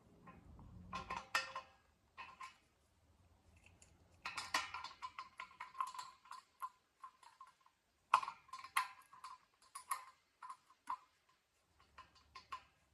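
Wrench tightening a nut on the axle bolt of an air compressor's wheel: several runs of quick, ringing metallic clicks and clinks.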